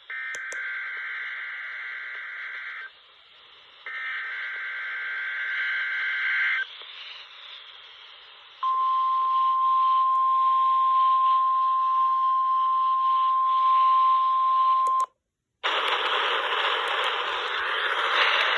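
Weather radio receiver playing an Emergency Alert System weekly test: two bursts of SAME header data tones, each nearly three seconds long. After a short pause comes the steady single-pitch 1050 Hz warning alarm tone for about six seconds, which cuts off abruptly. After a brief silence, loud radio static hiss sets in.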